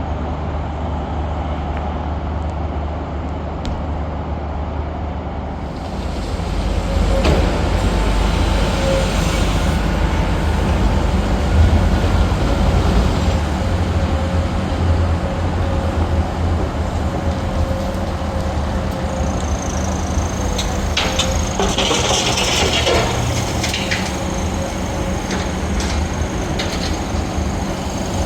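Diesel train engine running with a steady low rumble that grows louder about six seconds in. About two-thirds of the way through come a few clicks and a short burst of hiss.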